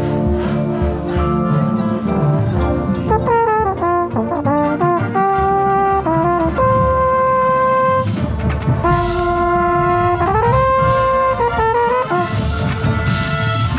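Drum corps brass line playing, led by a close-miked mellophone: held chords broken by quick moving runs, with a rising slur about ten seconds in.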